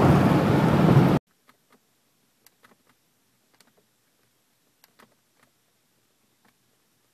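Loud wind, road and engine noise in the cabin of a 1996 Cadillac Fleetwood at about 110 mph, cut off abruptly about a second in. Then near silence with about a dozen faint clicks of the information-display buttons being pressed.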